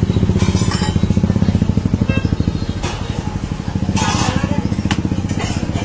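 An engine idling with a fast, even chugging, about a dozen beats a second. A few light metallic clinks sound over it.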